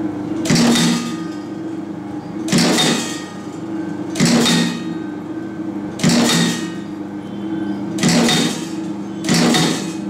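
A 2-ton roller-clutch terminal crimping press (RC-2000) with a side-feed applicator cycles six times, with a short, sharp stroke about every one and a half to two seconds. Each stroke crimps a chain-fed terminal onto a wire end. Underneath is the steady hum of the running machine.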